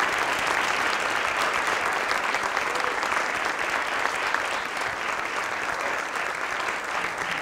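Audience applauding steadily: many hands clapping together, easing off slightly toward the end.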